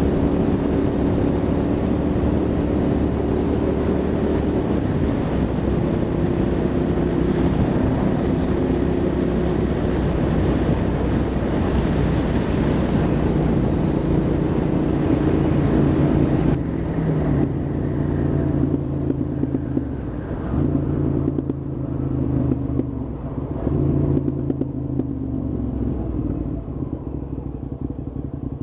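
Hyosung GT650R's V-twin engine running under way, with a steady rush of wind noise over it. About 16 seconds in, the rush drops away sharply and the engine note settles lower, falling and picking up unevenly as the bike slows.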